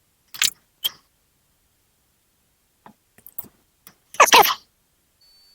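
Small metal parts of a dismantled computer drive being handled: two sharp clicks near the start, a few light ticks, then a louder half-second rattle and scrape about four seconds in.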